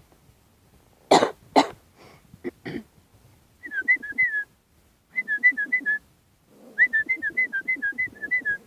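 Two short coughs, then a person whistling: three runs of quick, short, slightly falling notes, about four or five a second.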